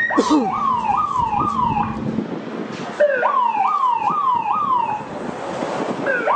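Electronic vehicle siren sounding in quick up-and-down sweeps, about two and a half a second, in three bursts of about two seconds with short breaks between them.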